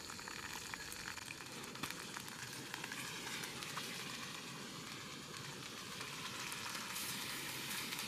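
Linguiça sausages frying in a small saucepan over an alcohol fire: a steady sizzle with fine crackling.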